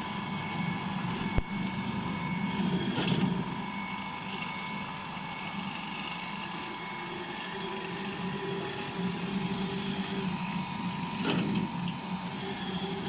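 Chipper knife sharpening machine running with a steady motor hum, with a sharp click early on and two brief, louder grinding bursts.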